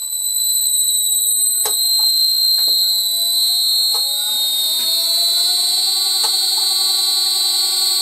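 Lathe's three-phase induction motor run from a cheap NF-9000 variable frequency drive at its default 4 kHz carrier frequency, speeding up: a steady piercing high whistle from the drive's switching, with lower tones rising in pitch as the motor gains speed and then levelling off. This harmonic noise comes from the low carrier frequency.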